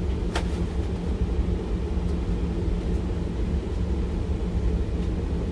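School bus engine idling with its heater blowing on full, a steady low rumble and hum. A brief click about half a second in.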